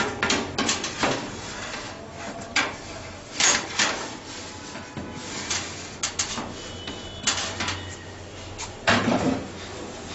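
Metal baking tray scraping and knocking against the wire racks of an oven as it is slid in and set in place: a string of sharp scrapes and clanks, the loudest near the end.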